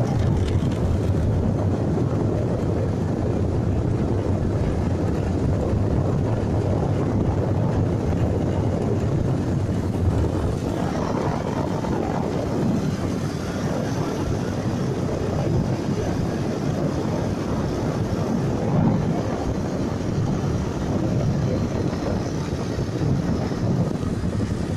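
A small boat's engine running steadily under way, a continuous rumble with wind rumbling on the microphone.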